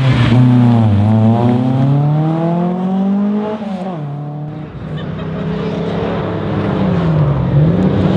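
A Volvo 240 rally car's engine revs hard, its pitch climbing steadily as it accelerates away, then drops off about three and a half seconds in and fades. The engine of the next rally car then grows louder as it approaches, with a brief dip in pitch shortly before the end.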